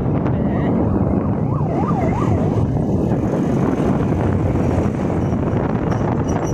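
Wind rushing over the microphone with road and engine noise from a moving motor scooter. About a second and a half in, a short siren-like tone warbles down and up three times.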